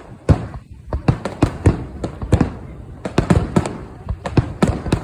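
Fireworks bursting in a rapid, irregular string of sharp bangs, about three or four a second.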